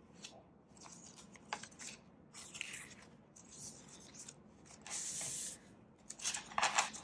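Polymer Canadian banknotes rustling and crinkling as a stack of bills is fanned and sorted by hand, with a longer sliding rustle about five seconds in and quicker, louder rustles near the end.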